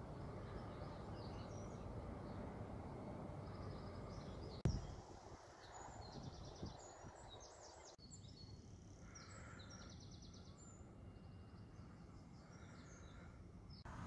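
Faint birdsong: repeated high chirps and quick trills. For the first few seconds it sits over a low wind rumble on the microphone, which drops away after a sharp click about five seconds in.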